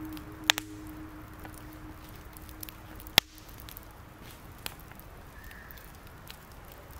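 Wood fire burning in a metal pot, crackling with a few sharp pops, the loudest about three seconds in.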